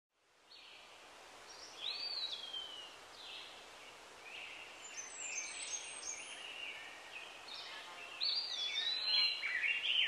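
Birds chirping and whistling: a string of short calls and gliding notes over a faint hiss. They grow busier and louder after about eight seconds.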